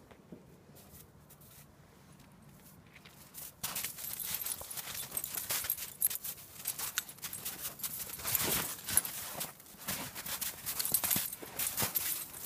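Paws of a Great Dane puppy and another dog crunching and scuffling in snow as they play, a dense crackling run that starts about three and a half seconds in after a quiet start.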